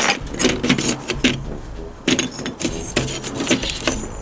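Chunks of broken cast plaster clinking and knocking against one another as they are handled on a board, in many quick irregular clicks.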